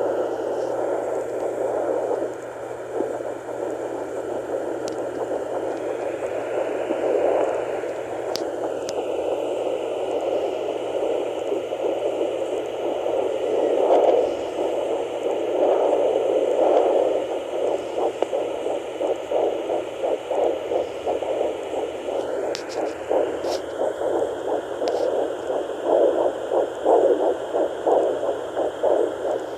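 Handheld fetal doppler giving out a steady whooshing static as the probe searches. In the last few seconds a fast, even pulsing comes through: the fetal heartbeat at about 10 weeks.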